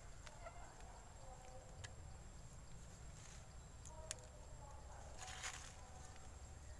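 Faint rustling and a few small clicks close by as young macaques chew on and handle a twig, with one sharper click about four seconds in.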